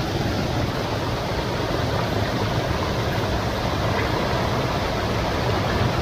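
Steady rushing of a forest stream and waterfall, an even noise with no change through the whole stretch.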